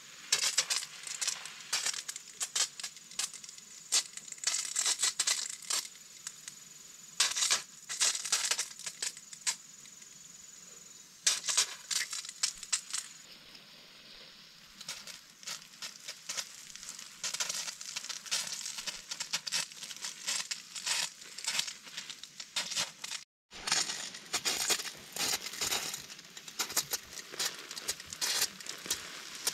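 Dry leaf mulch and twigs crunching and crackling in dense clusters with short pauses between them, as they are trodden on.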